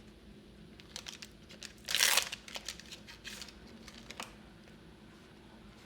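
A foil trading-card booster pack wrapper being torn open and crinkled by hand, with the loudest tear about two seconds in and short crackles for a couple of seconds after.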